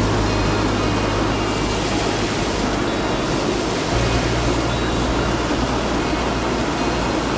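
Steady rush of a mountain stream's flowing water, with low held background-music notes that change about every four seconds.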